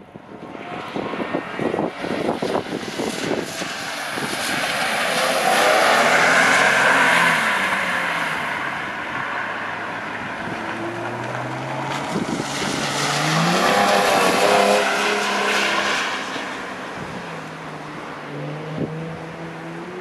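A sports coupe's engine revving up and easing off as it slides around a wet skid pan, under a hiss of tyres on standing water. It comes loudest twice as the car swings past, about six and fourteen seconds in.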